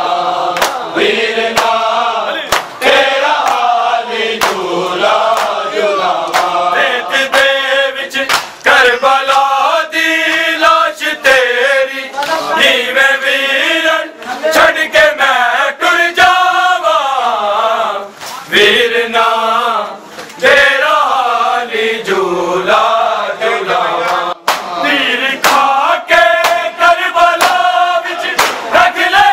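Men chanting a Shia Muharram lament (noha) in sung phrases, one lead voice with a group of voices. Sharp slaps of hands striking chests in matam are scattered through the singing.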